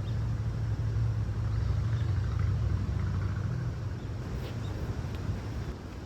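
A low, steady rumble that eases a little near the end.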